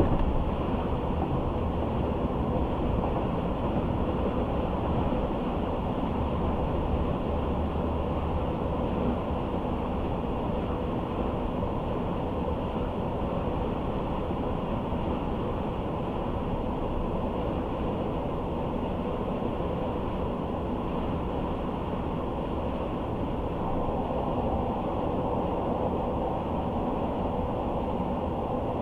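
Steady road and engine noise of a car cruising, heard from inside the cabin: an even low rumble with tyre hiss and a faint steady hum.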